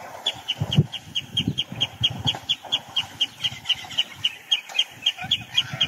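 A bird calling a steady series of short high notes, about five a second, over the low, irregular sloshing and thudding of elephants wallowing in a muddy pool.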